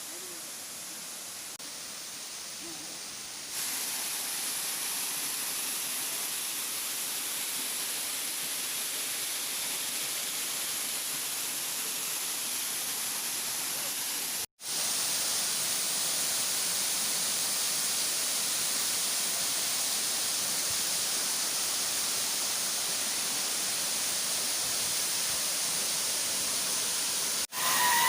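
Steady rushing of a waterfall, an even noise without tones weighted toward the high end. It steps up in level a few seconds in and cuts out briefly about halfway and again near the end.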